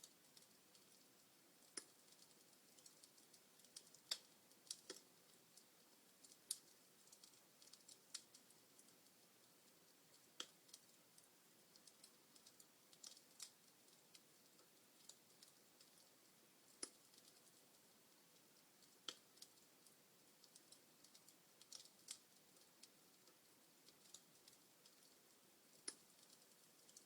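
Wood fire crackling in a fireplace: faint, irregular sharp pops and snaps from the burning logs, a louder one roughly every two seconds, over a soft hiss.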